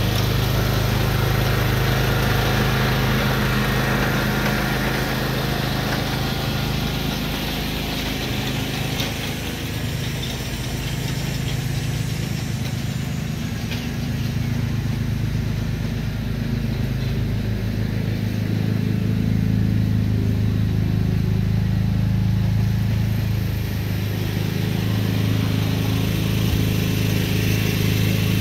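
John Deere lawn tractor's engine running steadily while it tows a core aerator around the yard. It fades a little about a third of the way in and grows louder again in the second half as the tractor comes back closer.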